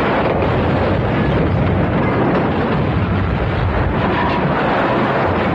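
Action-film sound effects: a continuous loud rumble of explosions and vehicle noise, with no single blast or shot standing out.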